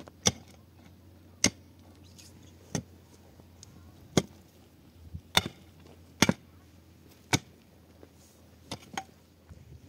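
A series of sharp knocks, seven strong ones about one to one and a half seconds apart, with a few lighter knocks near the end, over a faint steady hum.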